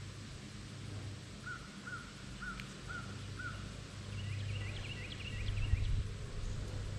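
Birds calling: five short, evenly spaced notes about two a second, then a quick run of higher notes, over a low steady rumble.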